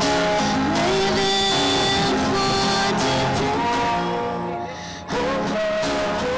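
A woman singing into a microphone while strumming an acoustic guitar, heard through a small PA. The music dips briefly about four and a half seconds in, then comes back suddenly.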